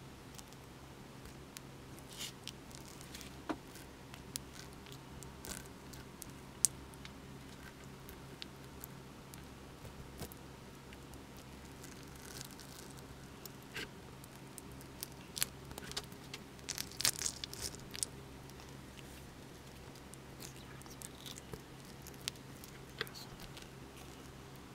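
Honeycomb being scraped off a wooden hive frame with a spoon: scattered soft crunching, tearing and sticky squishing of wax comb, with a busier run of sharper crackles about two-thirds of the way through.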